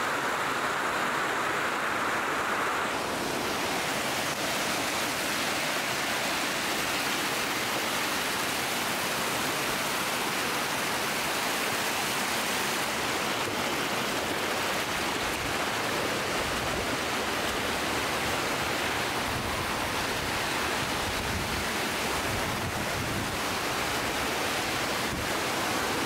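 Steady rush of a mountain creek and waterfall cascading over rocks, with shallow water running close to the microphone.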